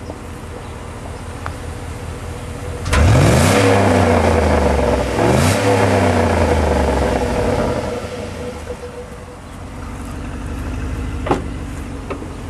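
Exhaust of a 2007 Chevrolet Suburban's 5.3-litre V8, idling and then revved sharply twice, about three and five seconds in. Each rev climbs and falls back, and the engine settles to idle. A single sharp click comes near the end.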